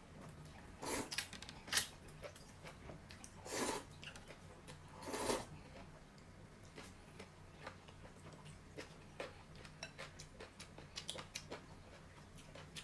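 Noodles being slurped, four loud slurps in the first half, followed by quieter chewing and small clicks of chopsticks against the glass bowl.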